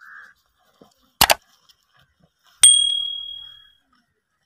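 A loud double click, then about a second and a half later a single bright bell ding that rings out and fades over about a second: the click-and-bell sound effect of a subscribe-button animation.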